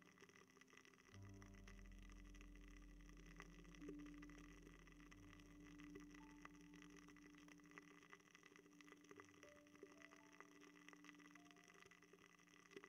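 Very faint crackling of a burning ear candle: scattered light ticks, with a soft low hum that comes in about a second in and fades out by about eight seconds.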